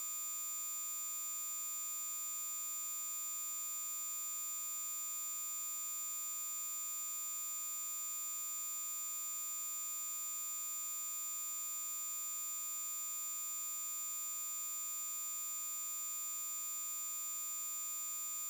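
Synthesized 7144 Hz sawtooth-wave test tone: a steady, very high-pitched buzzy whine held at constant pitch and level.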